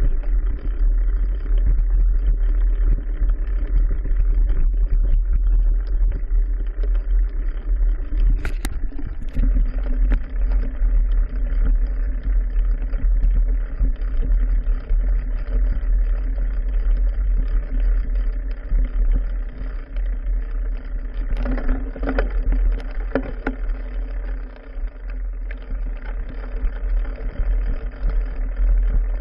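Mountain bike riding over a rough trail, heard through a GoPro in its housing on the handlebar: a steady low rumble of tyres and frame vibration. Sharp knocks and rattles come about a third of the way in and again a few times past the two-thirds mark.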